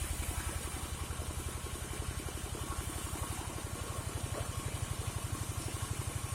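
Engine of a gergaji slendang timber saw rig running steadily with a rapid, even pulsing beat.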